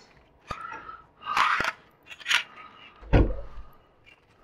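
Handling noise from a new blind's headrail and pull cord being unpacked: a few sharp clicks and short crinkly rustles, with a dull bump about three seconds in.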